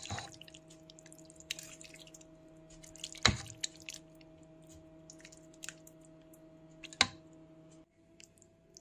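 Metal spoon scooping sauce-coated fettuccine out of a steel pot: soft wet squelching with small clicks, and two sharp clinks of metal on the pot, about three seconds in and about seven seconds in. A steady electrical hum runs underneath and stops near the end.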